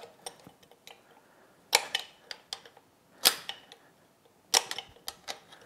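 Sharp metal clicks and ticks as a steel tool works against the tabs of the lock washer on an outboard's prop shaft nut, bending a tab down. The three loudest clicks come about a second and a half apart, with lighter ticks between.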